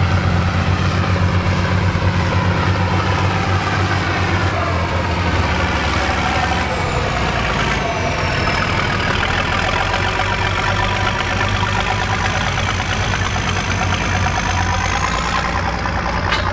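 Large farm tractor engine running steadily, its pitch sagging slightly and climbing again, with a faint high whine that slides down and then holds.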